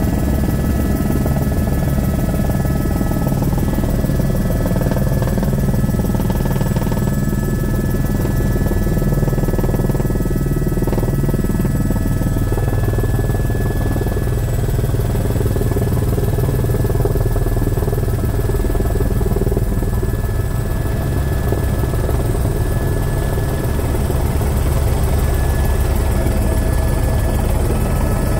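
Airbus H125 (AS350 B3) Ecureuil helicopter in flight, heard from inside the cabin: the single Arriel 2B turboshaft gives a steady whine of several fixed high tones over the low, fast beat of the main rotor.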